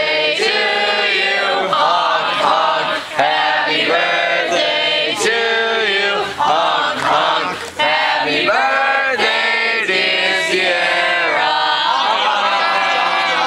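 A group of people singing together in unison, with clapping near the end.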